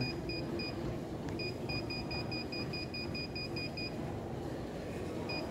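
Gym exercise machine's console beeping rapidly, about six short electronic beeps a second in two runs with a pause between and a couple more near the end, over the steady running noise of the machine.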